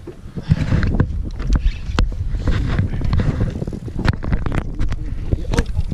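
Wind buffeting the microphone on an open boat, a loud uneven rumble, with several sharp knocks and clicks, the clearest about two, four and five and a half seconds in.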